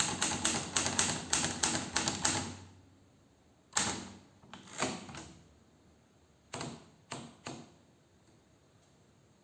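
Hermes Baby portable manual typewriter being typed on: a quick run of key strikes, then a few separate strokes.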